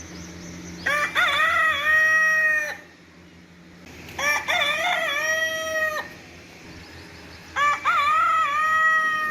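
A rooster crowing three times, each crow a few short rising notes followed by a long held note that cuts off suddenly.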